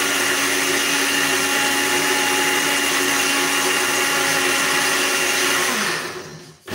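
Countertop blender motor running steadily, blending watermelon and ginger with lemon juice and water. Near the end the motor winds down, its pitch falling as it nearly stops, then it starts up again.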